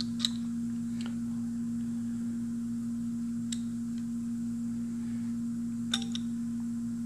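A steady low hum with a few light metallic clicks, the sharpest just after the start and near six seconds in, from a dial height gauge being wound up on a granite surface plate.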